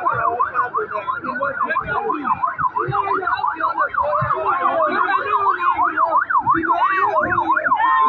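Electronic siren on the yelp setting, its pitch sweeping rapidly up and down several times a second, with the sweeps slowing a little near the end. Crowd voices chatter underneath.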